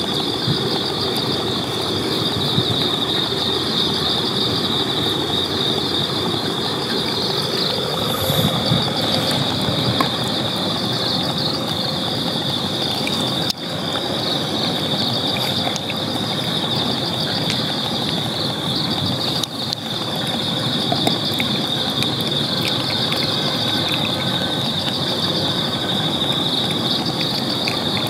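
Crickets chirring steadily in a high, unbroken band over a constant low background noise, dipping briefly twice.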